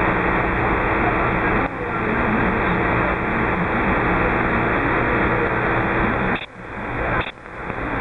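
Radio receiver static from a transceiver tuned to 27.520 MHz: a steady loud hiss with a low hum. Near the end it drops out, then returns in short swells that build and cut off about once a second.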